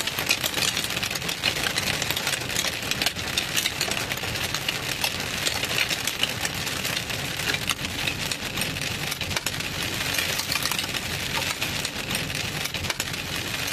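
Hail hitting the car's roof and windshield, a dense, steady rattle of hard ticks, heard from inside the moving car over low road noise.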